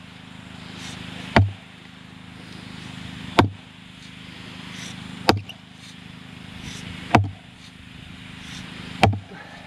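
Sledgehammer pounding a wooden fence post down into wet clay: five heavy blows about two seconds apart.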